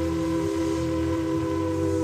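Steam locomotive whistle held in one long, steady chord of several notes, its pitch sagging slightly.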